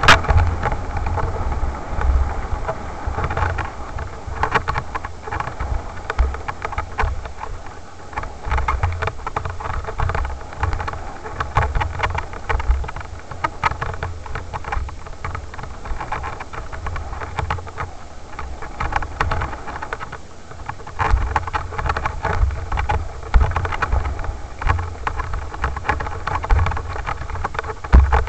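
Riding noise of a bike descending a leaf-covered dirt trail at speed. Wind buffets the microphone in gusts, with a constant clatter of rattles and knocks from the rough ground.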